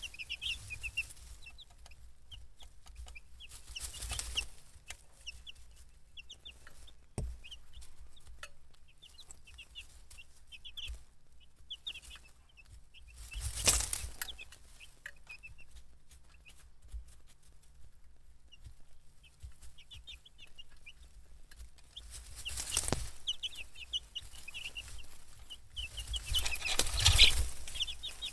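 Baby chicks peeping, many short high cheeps overlapping. There are a few louder bursts of rustling, the loudest near the end.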